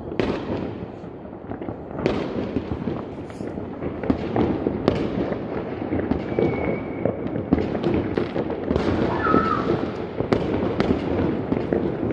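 Fireworks and firecrackers going off across the city: a continuous crackle of distant bangs, with sharper, louder bangs every two to three seconds.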